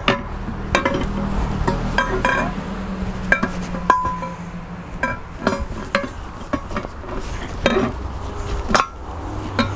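Steel tyre bar of a Sealey TC960 manual tyre changer clinking and knocking against the steel wheel rim and the changer's post as a new tyre is levered onto the wheel: a string of sharp metallic strikes, some ringing briefly, at irregular intervals.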